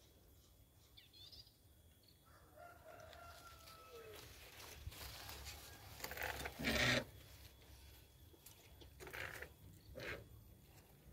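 A rooster crows about two seconds in: one drawn-out call of about two seconds that drops in pitch at its end. Several rustling, brushing noises follow, the loudest about six and a half seconds in.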